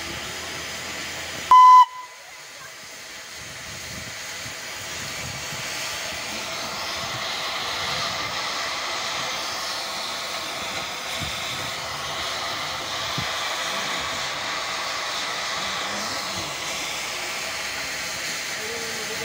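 Darjeeling Himalayan Railway B-class steam locomotive gives one short, loud whistle blast about one and a half seconds in. Then a steady steam hiss builds up from the standing engine and carries on.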